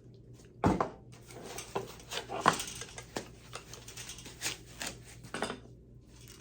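Package being opened and unpacked by hand: a knock under a second in, then a string of rustling, tapping and light clattering as the contents are handled, dying away near the end.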